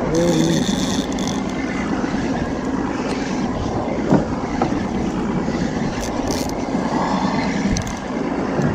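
Steady wind and water noise on a small boat on a choppy sea, with a couple of faint clicks.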